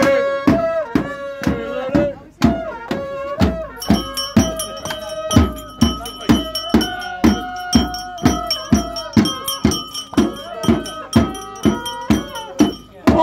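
Bass drum beaten in a steady rhythm, about two to three strokes a second, under a group of voices singing a football chant.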